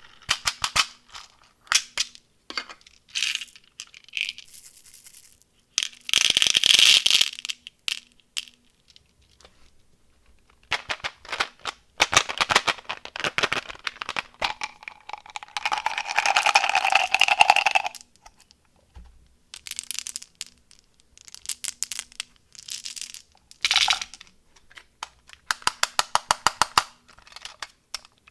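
Candy packaging being opened and handled: plastic wrappers crinkling and tearing, with many sharp clicks and taps. Near the end comes a quick run of evenly spaced clicks.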